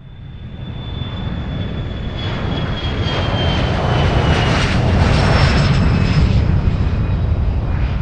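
Airplane flying past. The engine noise builds from quiet to a peak about five seconds in, then eases slightly near the end, with a high whine that slowly falls in pitch.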